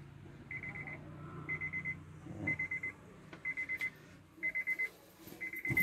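2008 Honda Civic's warning chime beeping while the driver's door stands open: a short, rapid-pulsed beep about once a second, six times.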